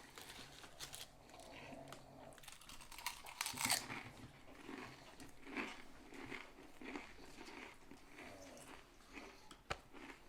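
A person chewing food close to the microphone: crisp crunches and crackles, with the loudest bite about three and a half seconds in, then a steady rhythm of chewing.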